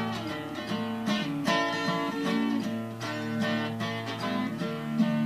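Steel-string acoustic guitar strummed in a country song's instrumental gap between sung lines, chords struck about twice a second.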